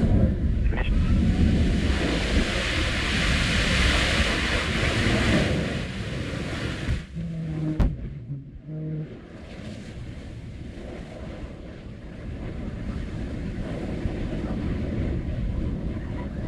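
Morpheus lander's liquid-oxygen/methane rocket engine firing with a loud, steady roar. After about seven seconds a cut brings a quieter, continuous rumble.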